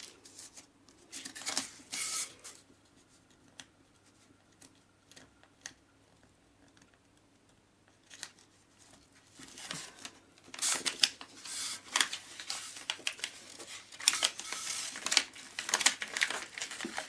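Self-adhesive clear book-covering film being handled and wrapped around a paper wing, crinkling and rustling. A few rustles in the first two seconds, a quiet stretch, then dense crackling from about ten seconds in.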